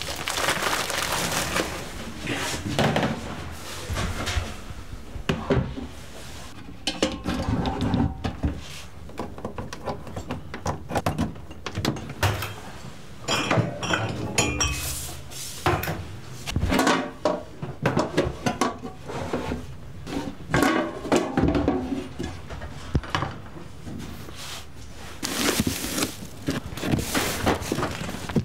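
Irregular clatter, knocks and plastic rustling as food-stall supplies are handled and stowed: wrapped packets, plastic bags of meat and items set down on steel surfaces and in a fridge.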